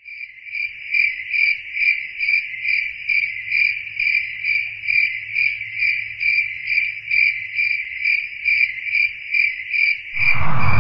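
A cricket chirping in a regular rhythm, about two to three high chirps a second. Near the end a loud rushing sound swells in over it.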